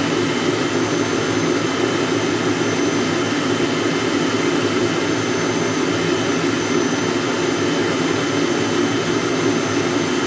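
AEG stand mixer running steadily, its motor and beater going without change in speed.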